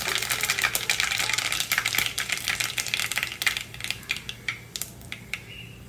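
Mustard seeds spluttering in hot coconut oil in a clay pot: a dense crackle of quick pops that thins out to a few scattered pops over the last couple of seconds, as the seeds finish popping.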